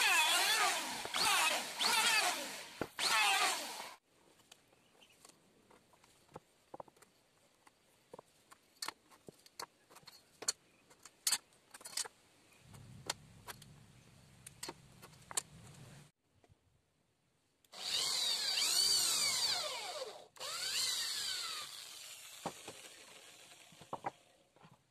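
An electric hand planer runs over a wooden board and cuts off about four seconds in. Quiet scattered ticks and taps follow while the board is marked out. Near the end an electric drill bores into the wood in two runs, the first longer than the second.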